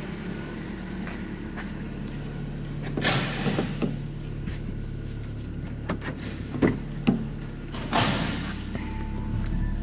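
2009 Hyundai Getz 1.4-litre four-cylinder petrol engine idling steadily during an engine test, a low even hum. Several short clunks and rustles break in about three seconds in and again from six and a half to eight seconds in, as the driver's door is handled and opened.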